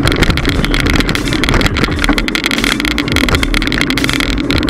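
Riding noise of a Trek 3700 mountain bike picked up by an action camera mounted on the rider: wind buffeting the microphone, a steady hum from the tyres and road, and dense rapid rattling over the road surface.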